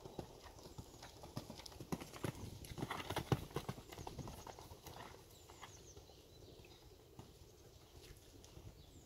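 Hoofbeats of a horse cantering on sandy arena footing, a rhythmic run of dull thuds that grows loudest about three seconds in as the horse passes close, then fades as it moves away.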